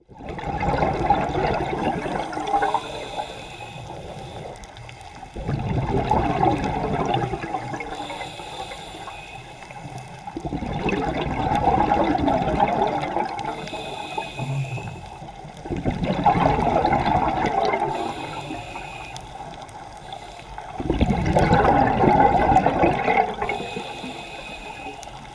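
Scuba diver breathing through a regulator underwater: a short hiss on each inhale, then a longer rush of exhaled bubbles, repeating about every five seconds.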